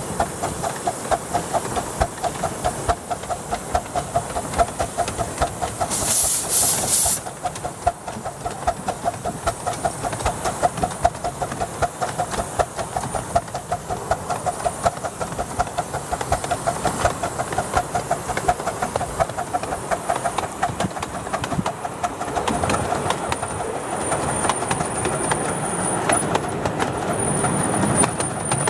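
Miniature steam locomotive hauling a long train of coaches, with a fast, even rhythm of beats and wheel clatter. A loud burst of steam hiss comes about six seconds in, and a thin high whine runs through the last few seconds.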